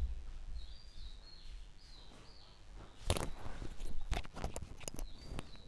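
A few short bird chirps in the first couple of seconds. From about three seconds in comes a run of knocks and clicks as a person sits down at a desk and handles a laptop.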